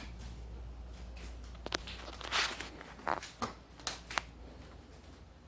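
Window blinds being worked: a quick series of rattling clicks and scraping rustles as the slats and cord move, bunched in the middle second or two, over a steady low hum.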